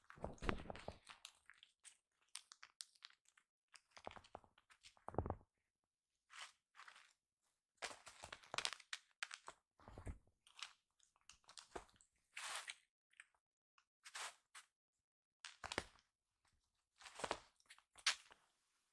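Two kittens playing with a fabric toy on a woven mat: irregular scuffs, scratches and rustles of paws and claws on the mat and toy, with a few soft thumps as they pounce.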